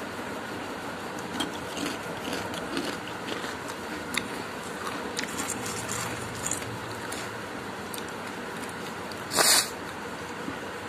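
Bingo Mad Angles triangle chips being rummaged by hand in a hammered steel bowl: light crackly rustles and clicks. About nine and a half seconds in there is one loud, short, crisp rustle as a chip is picked out, over a steady background hiss.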